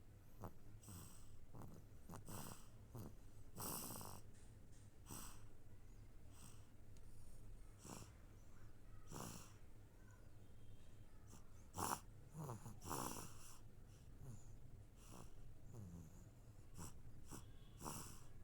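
Baby snoring softly in sleep: faint, short, wheezy and squeaky breaths at irregular gaps of a second or two.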